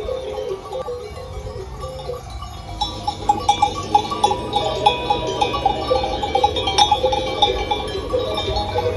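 Sheep bells of several different pitches clinking and ringing irregularly as a grazing flock moves, the clinks coming thicker and faster from about three seconds in.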